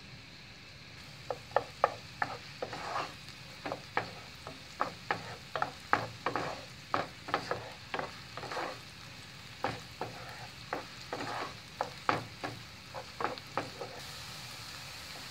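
Diced onion sizzling as it sautés in melted butter in a frying pan. A wooden spoon stirs it, knocking and scraping against the pan in quick, irregular strokes from about a second in until near the end.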